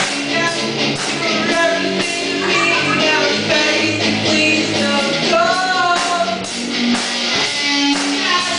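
A live amateur rock band playing in a small room: a man singing into a microphone over electric guitar and a drum kit, with steady drum hits under the sung melody.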